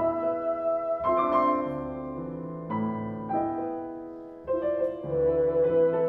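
Bassoon and piano playing classical chamber music: the bassoon holds long notes over piano chords that ring and fade, with a new chord or note change about every one to two seconds.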